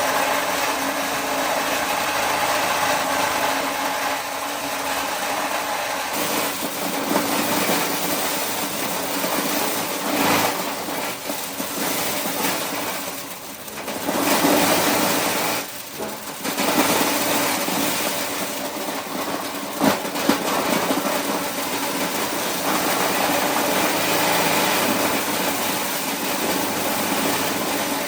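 Motor-driven corn shelling machine running steadily, a dense mechanical rumble and rattle with a few steady tones, which drops away briefly twice about halfway through.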